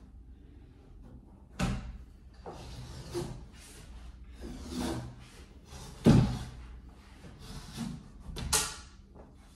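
Old pool table cloth being pulled and torn off by hand, a series of short rasping rips, the loudest about six seconds in.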